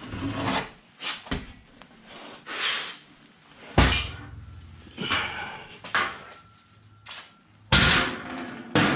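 Heavy welded steel hatch, sheet steel on an angle-iron frame, being lifted off a workbench and handled: a series of scrapes, clanks and knocks of steel, with a heavy metallic knock about four seconds in that rings on briefly, and another near the end.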